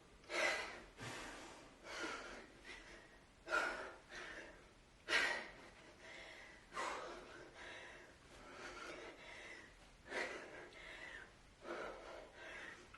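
A woman's forceful, rhythmic exhalations while swinging a 45 lb kettlebell, one sharp breath about every one and a half seconds, with heavy breathing in between.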